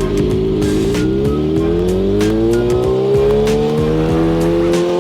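Kawasaki ZX-6R inline-four engine accelerating hard in one gear, its pitch rising smoothly and steadily through the revs after a brief dip at the start.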